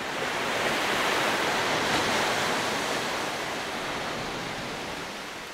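Ocean surf washing: a steady rush of waves that swells over the first couple of seconds and then slowly fades.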